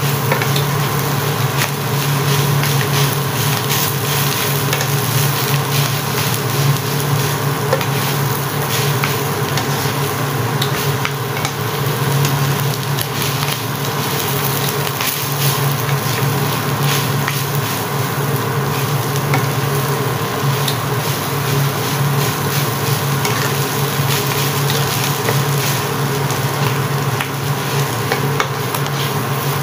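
Sticky rice stir-fry sizzling in a nonstick wok as a spatula stirs and scrapes through it, with many small scrapes and clicks, over a steady low hum.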